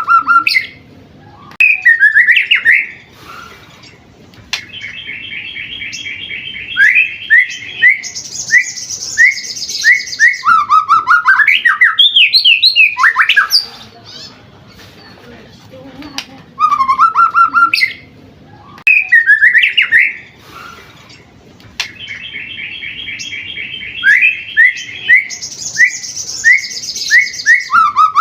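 Seven-month-old white-rumped shama (murai batu) singing a long, varied song: rapid trills, a high buzzy trill and sweeping whistled notes. The same sequence of phrases repeats about halfway through.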